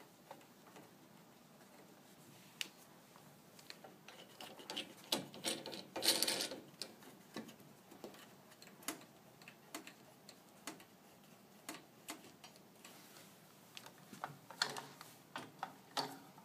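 A Carlson metal pressure-mounted pet gate being handled and fitted into a door frame: irregular clicks, taps and light rattles as its corner pressure spindles are adjusted against the frame, with a louder scraping rustle about six seconds in.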